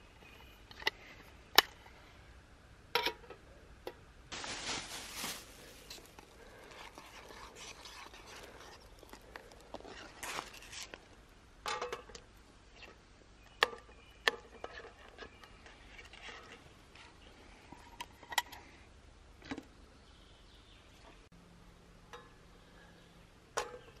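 Camp cooking gear and plastic packaging being handled: a series of sharp clicks and knocks, with rustling and crinkling about four to six seconds in and again around ten seconds.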